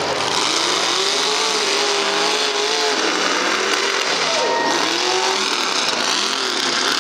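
Mega truck's big engine revving hard under heavy throttle, its pitch rising and falling again and again as it drives through the mud course.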